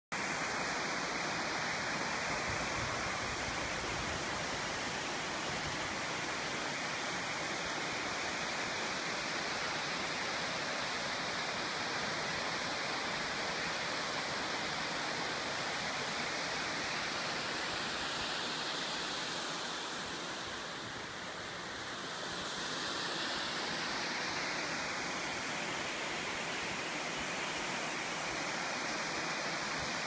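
Steady rushing of a cascading waterfall, dipping slightly about two-thirds of the way through.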